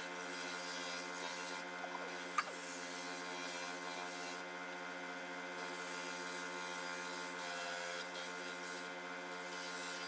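Homemade drum sander running with a steady hum while a thin wood strip is hand-fed across the spinning sanding drum, rubbing against the abrasive. There is a single sharp click about two and a half seconds in.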